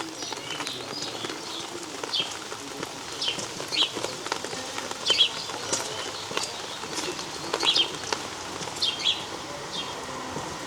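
Steady rain falling, with small birds giving short, high chirps every second or so, often in quick pairs.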